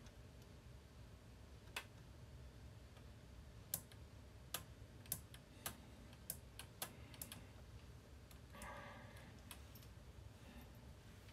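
Scattered sharp clicks as fingers handle the metal and plastic parts of an AKAI GXC-709D cassette deck's opened tape transport, about a dozen irregular clicks, with a short scrape about nine seconds in.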